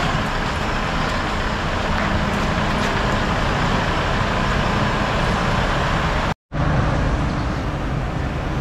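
Light truck engine running steadily at idle, a low even hum. The sound drops out completely for a moment about six seconds in, then carries on.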